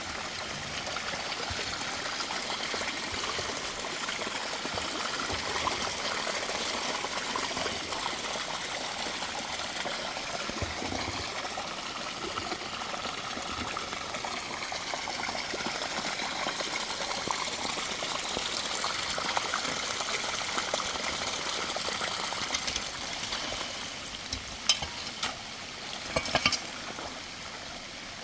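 Heavy rain falling steadily with an even hiss, easing slightly near the end, where a few sharp clicks stand out.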